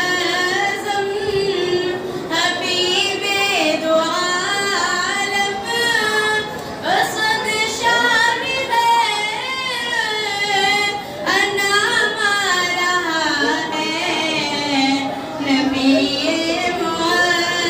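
A young woman's solo voice singing a naat, an Urdu devotional poem, unaccompanied, in a melismatic style with wavering, ornamented notes and long held tones, pausing briefly for breath between phrases.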